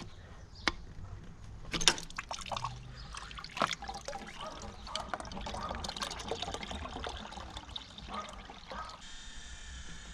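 An old rubber coolant hose being worked off its pipe by hand, with scattered clicks and knocks and a trickle of liquid.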